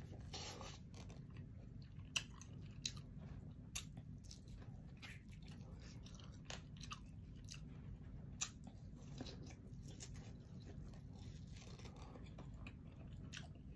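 A person eating a shrimp boil close to the microphone: quiet chewing with a few sharp mouth clicks and smacks scattered through.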